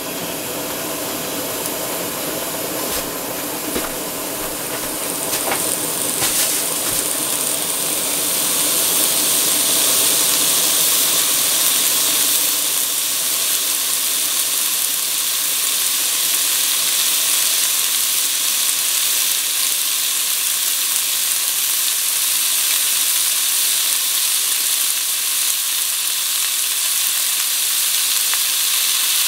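Thin-sliced pork starting to sizzle in a dry nonstick pan with no oil. The sizzle grows louder over the first nine seconds or so as the pan heats, then holds steady.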